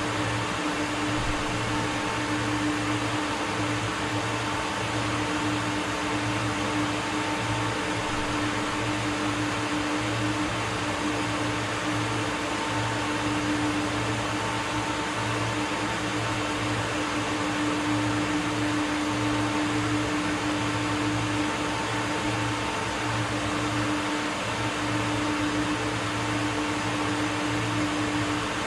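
Steady hum of industrial machinery running continuously, with a constant low tone and a fainter higher tone over an even whirring noise.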